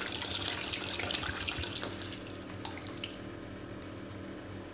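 Liquid bleach poured in a stream from a plastic bottle into a stainless steel pot of water, splashing and bubbling into the water. The pour stops about three seconds in.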